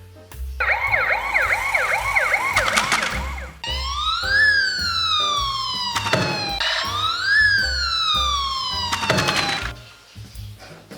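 Emergency-vehicle siren: a fast repeating yelp for about three seconds, then two long wails that each rise and slowly fall, over background music with a steady beat.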